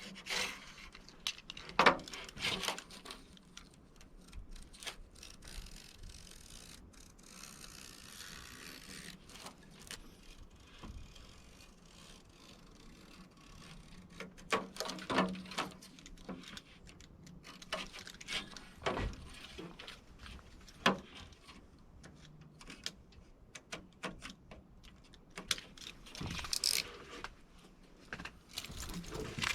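Irregular clicks, taps and rattles from handling a window screen frame and its repair tool, with a stretch of soft scraping early on.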